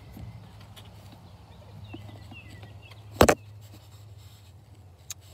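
One loud, sharp knock about three seconds in, over a low steady hum of the phone being carried, with a few faint chirps just before the knock and a small click near the end.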